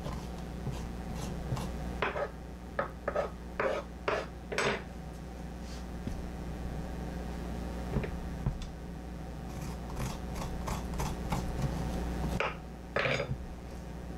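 A metal spoon scraping the seeds and stringy pulp out of halved pie pumpkins. There is a run of short scrapes a couple of seconds in, then two more near the end.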